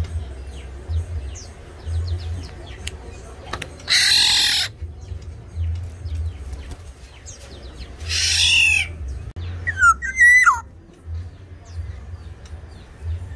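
Black-naped oriole calling: two loud, harsh, nasal squawks about four and eight seconds in, then a short fluty whistle that rises and falls. Faint high chirps from other birds come between, over a low steady hum.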